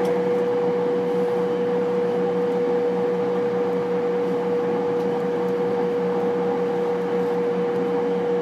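Steady electrical hum inside a JR East E231 series commuter train car, with a constant whine and a lower drone whose pitch stays level throughout.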